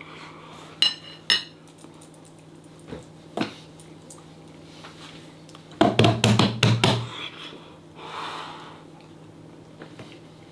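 Sounds of someone eating at a kitchen bench: a fork clinking twice on a ceramic plate about a second in, a couple of light knocks, then a quick run of loud taps against the benchtop about six seconds in, followed by a short breathy exhale.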